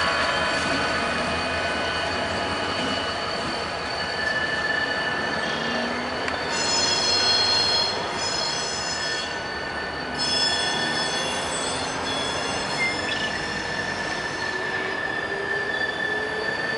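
Steel wheels squealing against the rail as a BNSF diesel locomotive and tank cars creep around a curve: a steady high-pitched squeal, with shriller squeals joining in about seven and again about ten seconds in. The locomotive's diesel engine runs low underneath.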